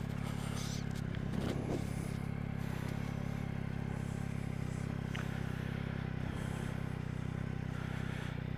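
Yamaha MT-09's inline-three engine running at steady revs, heard through a microphone inside the rider's helmet.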